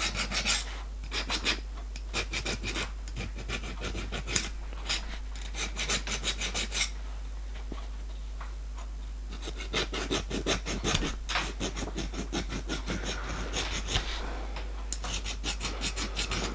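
A small hand file rasping in short strokes across the edges of a small machined metal part, deburring the sharp edges. The strokes come in runs, with a pause of about two seconds in the first half.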